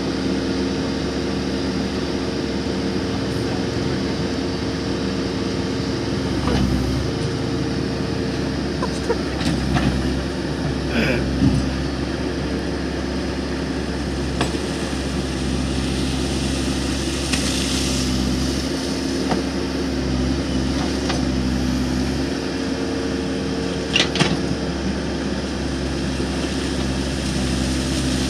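Case backhoe loader's diesel engine running steadily, its note shifting now and then as it takes load while digging. A few short knocks and clanks sound over it.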